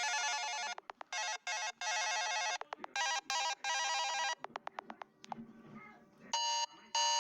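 Electronic phone ringtone: a fast trilling melody in short-short-long phrases, repeated, with quick runs of clicks between phrases. Near the end, a different electronic tone sounds three short beeps.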